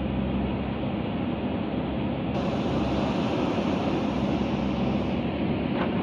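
Backhoe loader's diesel engine running steadily under load while its rear digging arm works the bucket.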